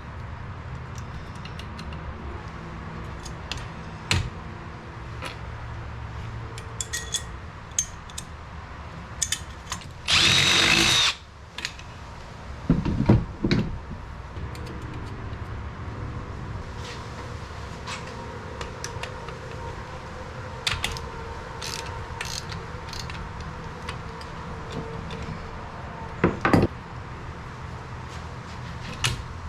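Workshop tool sounds: scattered clicks and knocks of parts and hand tools being handled. A power drill runs in a loud burst of about a second about ten seconds in, followed by a few more short loud bursts soon after and again near the end.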